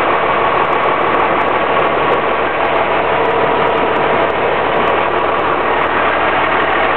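A 12-valve Cummins 5.9-litre inline-six turbo diesel in a 1997 Dodge Ram 3500 idling steadily, heard from inside the cab.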